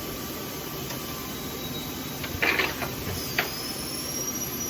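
Steady workshop background hum, with a brief rattle about two and a half seconds in and a sharp click about a second later, as metal items are moved about on a workbench.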